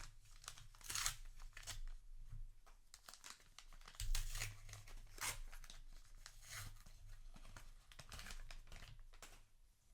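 A trading-card booster pack wrapper being torn open and crinkled by hand: a run of irregular, crackly rustles.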